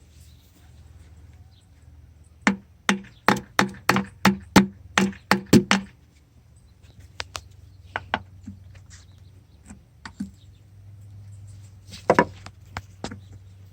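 A quick run of about ten sharp knocks of a tool striking metal on an engine, about three a second, each with a brief ring. A few scattered knocks follow, then a louder cluster near the end.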